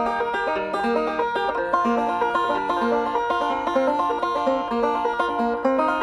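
Bluegrass background music: a banjo picking a quick run of plucked notes, with no singing.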